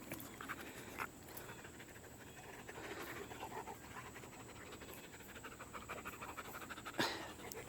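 Dog panting fast and steadily from the summer heat, faint. There is a brief knock about a second in and another near the end.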